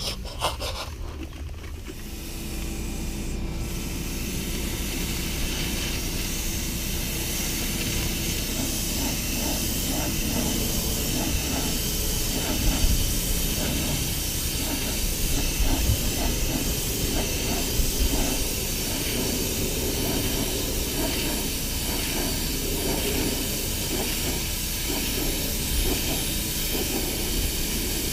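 Gravity-feed paint spray gun hissing steadily with compressed air as it sprays paint, starting about two seconds in.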